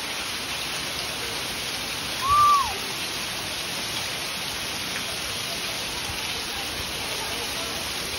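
Heavy rain falling steadily, with water pouring off the edge of a tiled roof onto the ground, an even unbroken hiss. About two seconds in, a short tone rises and falls once.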